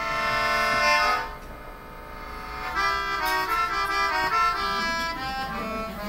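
Keyboard and upright bass playing an instrumental jazz passage. A chord is held for about the first second, then a line of single notes comes in about three seconds in.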